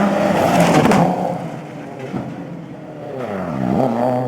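Rally car engine at high revs passing close, with sharp crackles in the first second, then fading. Near the end an engine note drops steeply and climbs again, as a car lifts off and re-accelerates.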